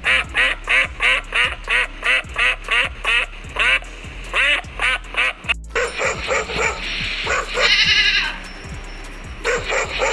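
A duck quacking in a quick, even series of about two to three quacks a second. About six seconds in this gives way to a goat bleating in longer, harsher calls, over background music.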